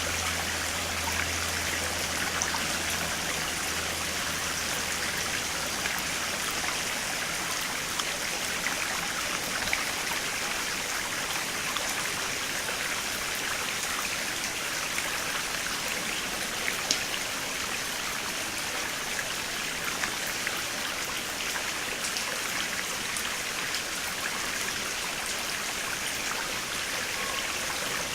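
Stream water flowing and splashing steadily, with many small drips and ticks. A low hum fades out in the first few seconds.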